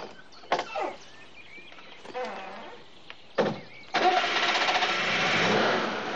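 Two sharp thumps, then about four seconds in a Citroën GS's air-cooled flat-four engine starts and runs loudly.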